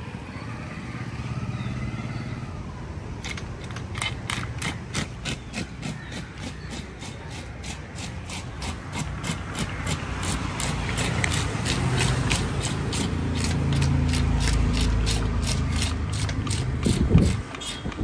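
A large spotted fish being scaled with a toothed hand scaler: quick scraping strokes, about three a second, that start a few seconds in and keep going. A low engine rumble rises underneath toward the end.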